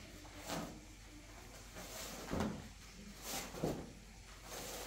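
Fabric rustling and soft knocks as a floor cloth is spread out and smoothed over a carpet by hand, in several short bursts.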